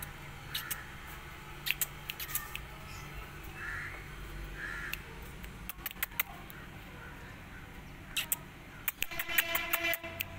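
A kitten mewing in a few short, high calls, among scattered sharp clicks.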